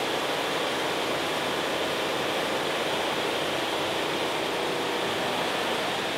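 Steady rush of air from an electric fan set on a drag car's engine, cooling it down after a run.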